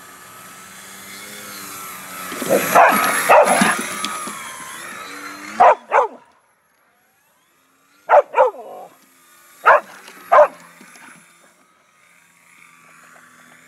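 A dog barking excitedly in short bursts: a cluster of barks a few seconds in, two more about halfway, then several more later. Under the barks, a model airplane's motor whines, rising and falling in pitch.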